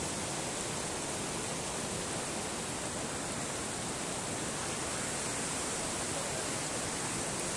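Lidder River, a fast mountain river, rushing over rocks in whitewater rapids: a steady, even rush of water.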